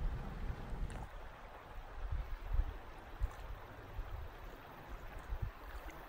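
Shallow creek water running over a stony bed, a steady rushing, with a few soft low bumps now and then.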